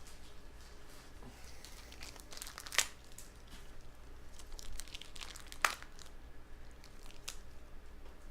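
Plastic wrapping on trading-card boxes or packs being handled and torn open, crinkling, with two sharp snaps.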